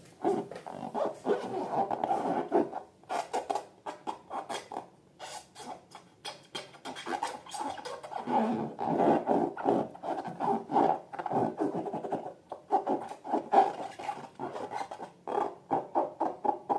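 Slime being squeezed and worked by hand: a run of quick sticky crackles and squelches with a few short pauses.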